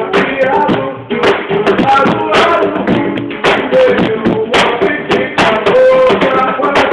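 Loud home-made music: a wavering melody line over sharp percussive strikes about once a second.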